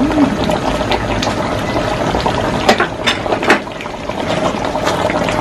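Thick tomato sauce simmering in an aluminium wok while a wooden spatula stirs it, with a few sharp knocks of the spatula against the pan about three seconds in, over a steady hum.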